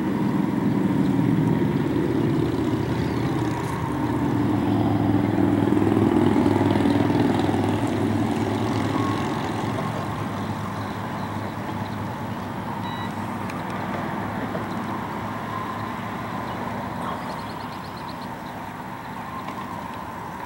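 Low engine rumble from a passing motor, swelling over the first several seconds and then slowly fading away.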